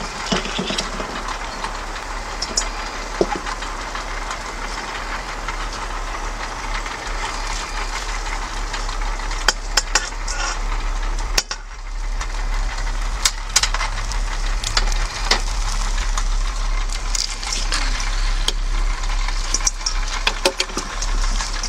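Metal rotisserie skewer clinking and scraping against a stainless steel bowl as pieces of cooked chicken are slid off it: scattered sharp clicks, more of them in the second half, over a steady low hum.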